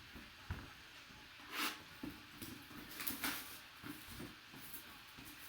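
A mystery box being handled and opened by hand: scattered rustles and scrapes of packaging with a light knock about half a second in and the loudest rustles near the middle.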